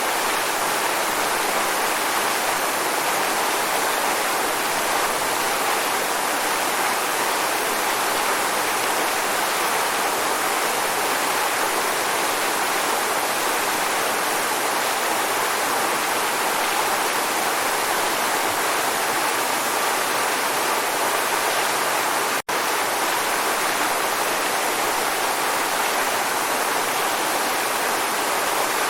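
Waterfall: a steady, even rush of falling water, broken once by a split-second gap about three quarters of the way through.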